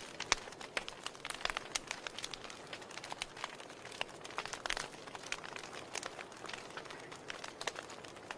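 Wood fire in a fireplace crackling: a constant soft hiss with frequent irregular sharp pops and snaps.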